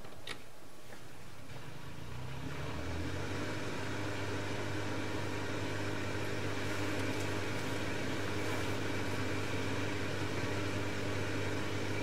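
Bosch dishwasher's drain pump starting about two seconds in and then running with a steady hum, which "sounds better" now that the piece of plastic blocking the drain (the cause of the E25 error) has been removed.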